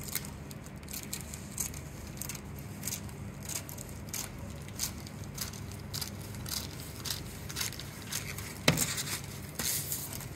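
Scissors snipping through a rhinestone transfer sheet and its protective film, a run of short crisp snips at about two a second. One louder click comes near the end.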